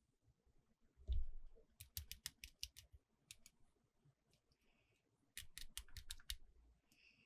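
Hard plastic toy parts being handled during an unboxing: a soft thump, then quick runs of sharp clicks, with two brief high squeaks.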